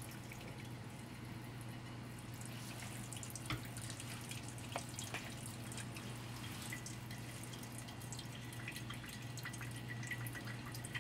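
Cooking water draining from an instant jjajang ramyeon cup, trickling in a thin stream and dripping into a stainless steel sink, over a steady low hum. This is the step of pouring off the water before the sauce goes in.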